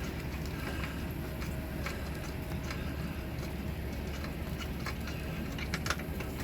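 Light clicks and taps of metal parts being handled as the fuel line and knurled nut come off an oil burner's gun, over a steady low hum.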